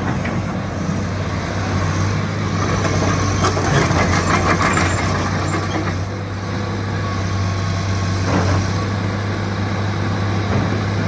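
Hitachi EX225USR hydraulic excavator's diesel engine running steadily, with a stretch of metallic clattering and squeaking from about three to five seconds in.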